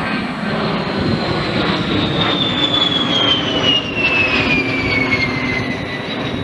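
A-10 Thunderbolt II's twin TF34 turbofan engines passing low overhead: a loud jet rush with a high whine that falls in pitch as the jet goes by, from about two seconds in to near the end.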